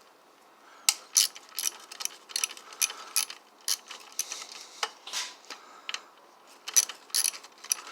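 A hand tool backing a screw out of a garbage disposal's casing: a string of sharp, irregular clicks and ticks.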